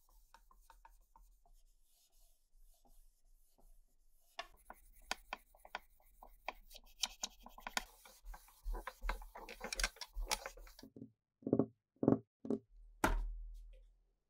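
A cotton pad soaked in alcohol rubbed back and forth over a ribbed plastic tape recorder housing, light scratchy strokes that grow faster and louder about four seconds in. Near the end come a few soft thumps and one sharper knock.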